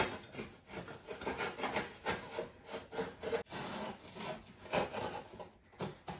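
Cardboard box being cut through, a run of irregular rasping, sawing strokes.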